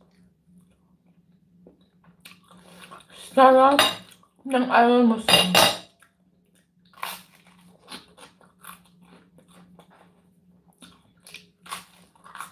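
Breakfast eating sounds: a fork clinking and scraping on a plate, with a clatter about five and a half seconds in, and then scattered small clicks of biting and chewing toast. Two loud wordless vocal sounds come about three and a half and four and a half seconds in, over a steady low hum.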